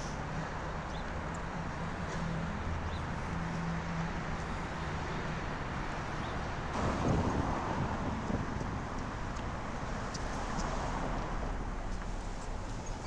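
City street ambience: a steady wash of traffic noise with a low hum, and a vehicle passing close about seven seconds in, swelling and then fading.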